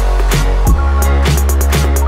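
Electronic background music with a deep, held bass line and a steady drum beat.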